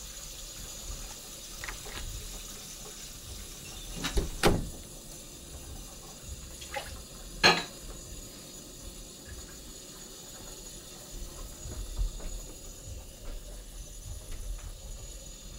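Kitchen tap running into a stainless-steel sink during hand dishwashing, with a few sharp clinks and knocks of dishes, the loudest about four seconds in and again about seven and a half seconds in.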